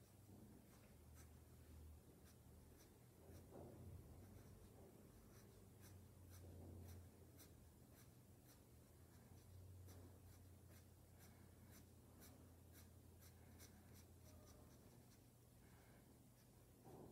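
Faint scratching of a coloured pencil on drawing paper in many short, quick strokes, over a low steady hum.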